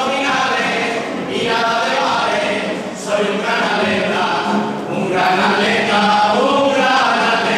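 A carnival comparsa singing together as a choir, its voices in short phrases with brief breaks between them.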